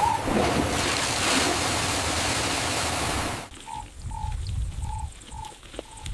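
A steady rushing noise cuts off suddenly about three and a half seconds in. A quieter ambience follows: short, evenly repeated animal calls at one pitch, about two a second, over a low rumble.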